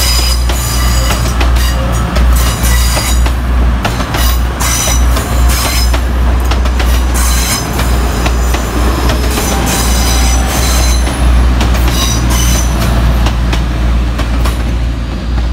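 Two coupled Class 185 diesel multiple units passing close by over a steady deep rumble, with brief high wheel squeals and clicks from the wheels over the rails repeating throughout.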